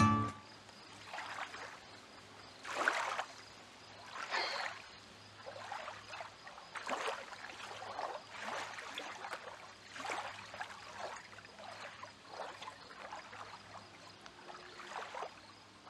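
Water sloshing and lapping in soft, uneven swishes every second or two, over a faint steady low hum.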